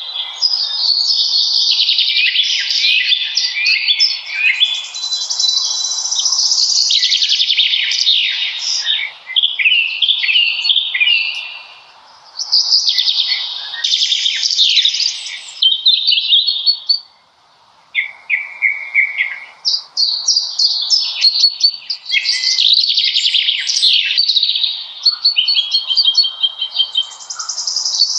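Several songbirds singing at once in a dense forest chorus of overlapping chirps and trills, with short lulls about twelve and seventeen seconds in.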